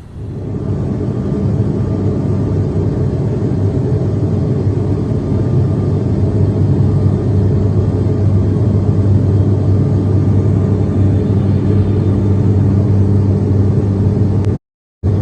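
A large ship's engine running steadily, with a deep, even drone that cuts off briefly near the end.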